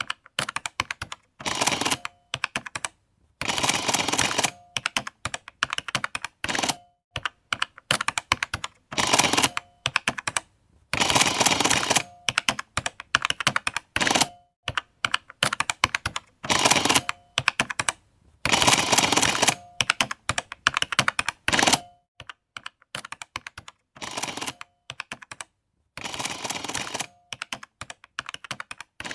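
Printing calculator in use: keys tapped in quick runs of clicks, alternating with about ten short dense bursts of the print mechanism running, each ending on a brief tone.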